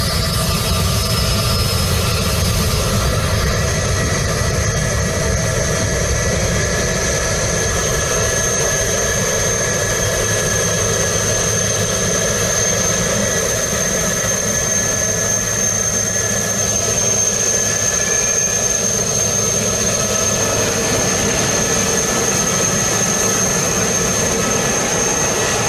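Jet airliner engines running steadily, an even rush of noise with a steady high whine over it.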